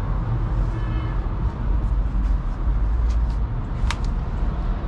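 Steady low rumble of a running 2001 Trane Voyager 5-ton packaged air conditioner mixed with nearby road traffic. A faint short tone sounds about a second in, and a sharp click comes near four seconds.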